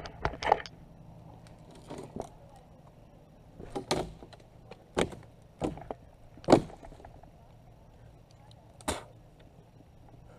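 A string of about eight sharp knocks, irregularly spaced a second or two apart, the loudest about two-thirds of the way through, over a faint low hum.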